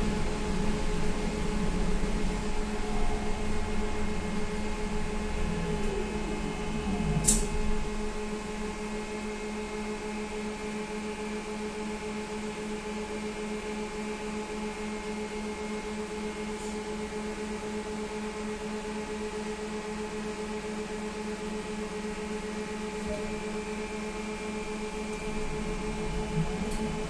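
Inside a SVARZ-MAZ-6275 trolleybus: the motor whine falls in pitch as it slows to a stop, and a short sharp hiss comes about seven seconds in. It then stands with only the steady electrical hum of its onboard equipment, and near the end the rumble and a rising whine return as it pulls away.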